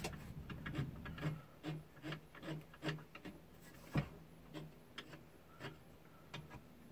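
Socket ratchet clicking faintly in short runs as it turns out a long-threaded mounting bolt of a rooftop air conditioner, with light rubbing of metal parts; one louder click about four seconds in.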